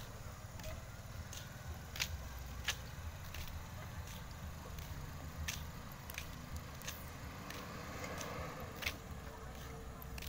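A steady low outdoor rumble with about ten sharp clicks at uneven intervals.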